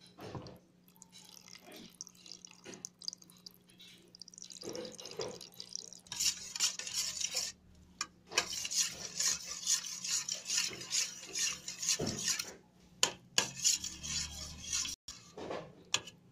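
A metal spoon stirring tapioca pearls and milk in a stainless steel bowl, scraping and clinking against the bowl in quick repeated strokes. The stirring grows loud about six seconds in, with a few short pauses.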